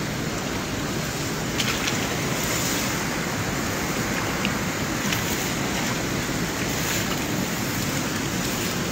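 Wind buffeting the phone's microphone, a steady rushing noise, with a few faint clicks and rustles as grass is pushed aside by hand.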